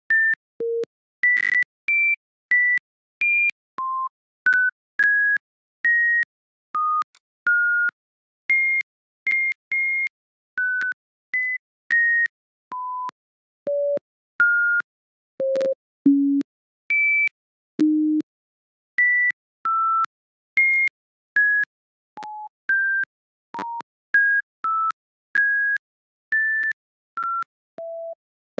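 Emergency alert system alarm tone: a long run of short, clean electronic beeps, each a single pitch that jumps unpredictably between low and high from beep to beep, at a little over one beep a second with a click at the start of each. Two lower, slightly longer beeps come a little past the middle.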